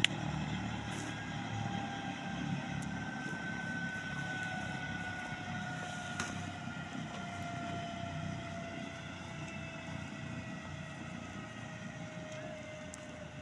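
Helicopter turbine whine and rotor noise, slowly falling in pitch and fading as the helicopter moves away.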